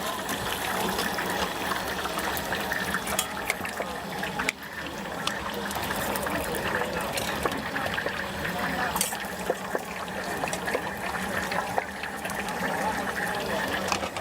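Stinky tofu deep-frying in a large wok of hot oil: a steady sizzle thick with small crackles and pops.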